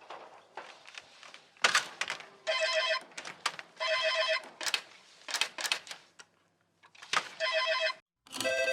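AI-generated sound effect of a ringing bell, like a telephone's ringer, sounding in several short bursts with sharp knocks between them.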